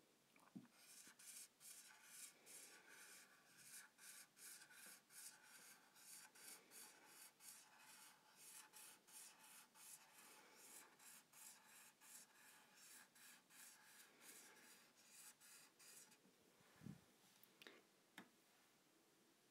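Dry-wipe marker nib scratching across a small whiteboard in quick repeated strokes, writing a row of joined cursive letters, then stopping. A soft knock and a couple of light taps follow near the end.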